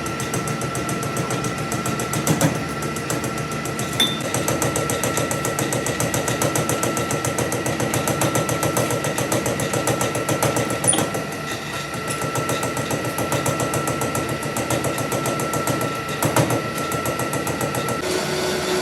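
Metalworking machine running with a fast, even clatter over a steady whine, with a few sharp knocks along the way.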